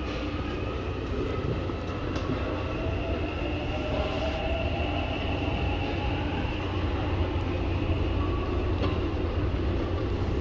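Seoul subway train running through the station, a steady low rumble with a faint motor whine that slides a little in pitch partway through.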